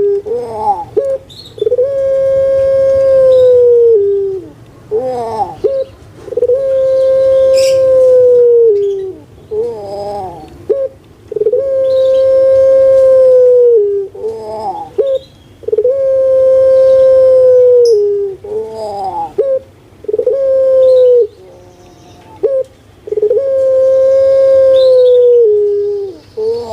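Puter pelung (Streptopelia risoria), a large domesticated dove kept in Java for its song, cooing over and over: each call is a short wavering rising phrase followed by one long, loud, steady coo of about two seconds that drops in pitch at the end, repeated roughly every four seconds.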